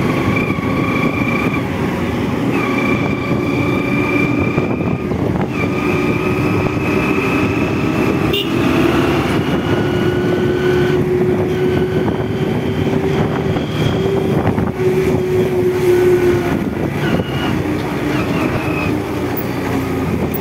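Motorcycle riding at a steady cruise behind a truck: steady engine drone with a tone that wavers slightly in pitch, over wind noise on the microphone.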